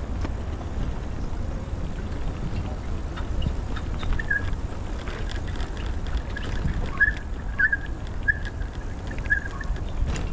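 Outdoor ambience: a steady low rumble of wind on the microphone, with a run of five or six short, high chirps in the second half.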